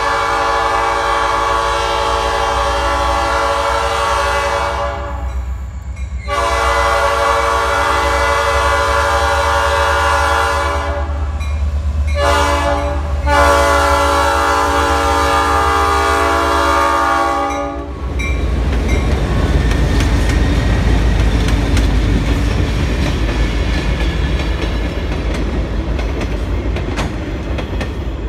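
Diesel locomotive's multi-chime air horn, Rock Island 4506 leading, sounding two long blasts, a short one and a final long one: the grade-crossing signal. After the horn stops, the locomotive's engine and the train's wheels rumble past loudly.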